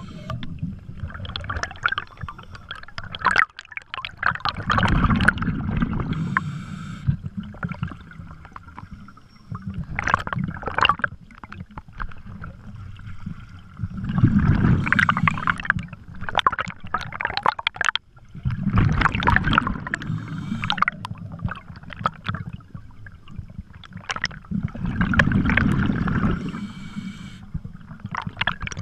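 Scuba breathing heard underwater: a rush of exhaled bubbles from a diver's regulator recurring about every five seconds, with quieter stretches between breaths.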